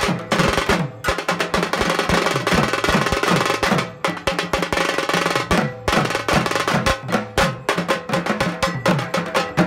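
Background music of fast, rolling drumming: a dense stream of stick strokes over low drum notes that slide down in pitch.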